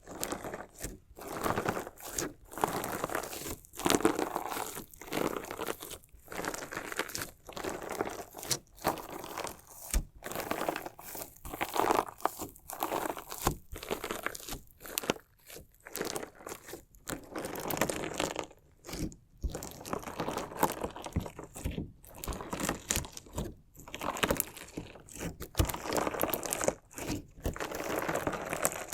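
Crunchy slime mixed with small decorative stones being worked by hand, crunching and crackling in irregular bursts with short pauses between them.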